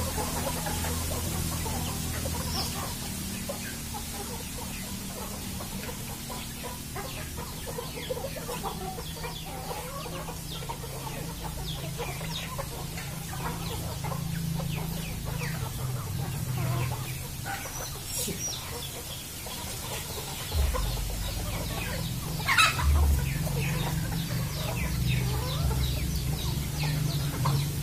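A flock of free-range village chickens clucking as they feed, with many short overlapping calls and one louder, shrill call about three-quarters of the way through. A low steady rumble runs underneath.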